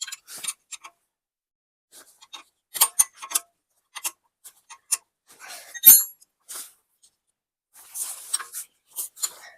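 Scattered metallic clicks, knocks and brief scraping of a wrench working the 17 mm hex-head spring nuts on a stump grinder's PTO slip clutch. There is a short run of clicks about three seconds in and one sharp, ringing clink near six seconds.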